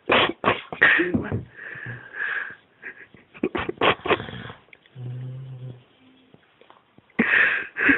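Stifled laughter: breathy giggles in short bursts, with a few brief held hums, from people trying not to wake a sleeper.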